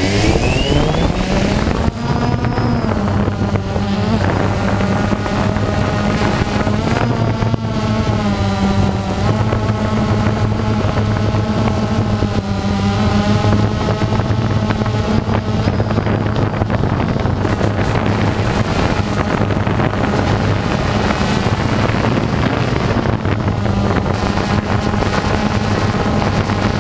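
Quadcopter drone's electric motors and propellers spinning up for takeoff, the pitch rising over the first two seconds. It then settles into a steady buzzing hum whose pitch wavers slightly as the drone climbs and hovers. Heard close up from the camera mounted on the drone.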